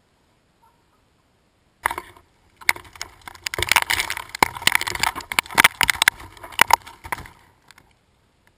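Dry fallen leaves crackling and rustling with many sharp clicks as a bicycle rides through them close past the camera, throwing leaves up around it. It starts about two seconds in after near silence, is densest in the middle and dies away near the end.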